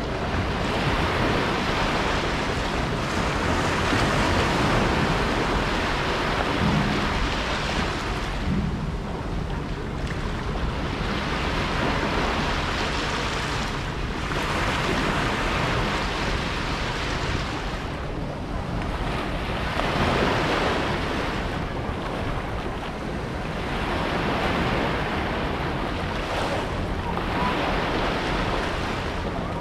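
Small waves breaking and washing up over a sandy, rocky shore, the surf swelling and easing every few seconds.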